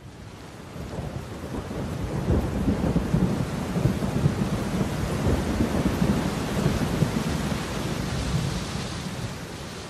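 Rain with a deep rolling thunder rumble, fading in over the first couple of seconds and then going on steadily.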